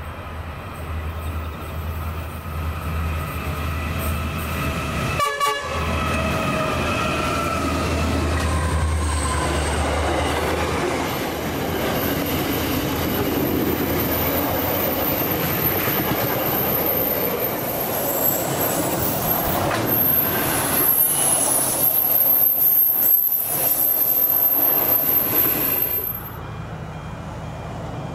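Diesel train passing close by: the horn sounds and drops in pitch as the locomotive goes past, over the engine's low drone. Then the wagons roll by in a steady rumble with a high wheel squeal, which cuts off suddenly near the end.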